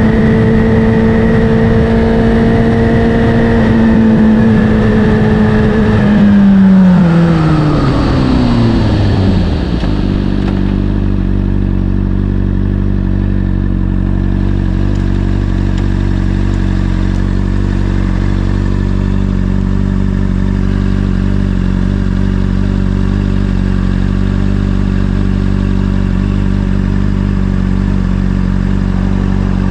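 Honda CBR600RR inline-four through an Akrapovic exhaust, holding steady revs with wind rush, then revs falling away smoothly over about four seconds as it slows, and settling into a steady idle for the rest.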